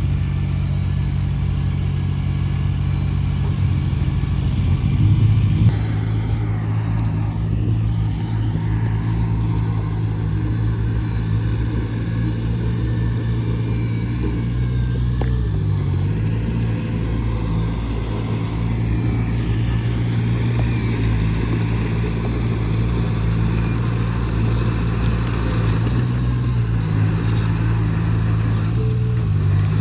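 Heavy earthmoving machine's diesel engine running steadily under load, with a brief louder surge about five seconds in and short dips in engine speed around the middle and near the end.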